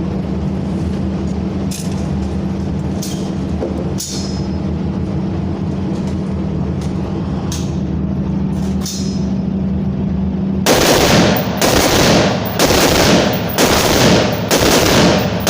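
Gunfire at a shooting range: a steady droning hum with a few scattered, fainter gunshots, then about ten seconds in an abrupt change to loud, rapid shooting at about two shots a second.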